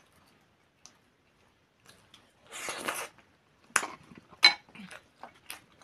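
Eating pelmeni with sour cream from a spoon: a short wet mouthful sound, then a spoon clinking against a china plate several times, one clink ringing louder than the rest.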